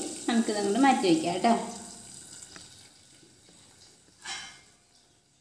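A person's voice speaking for about the first second and a half, then fading to quiet, with one short hiss about four seconds in.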